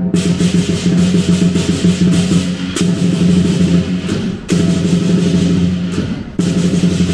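Southern lion dance percussion: the big lion drum beaten in fast rolls, with several crashes of cymbals and gong, the drumming breaking off briefly a couple of times.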